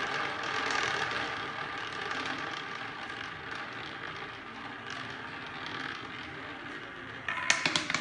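Roulette ball rolling around the spinning wheel's track, a continuous whirring rattle that slowly fades, then a clatter of sharp clicks near the end as the ball drops and bounces into a pocket.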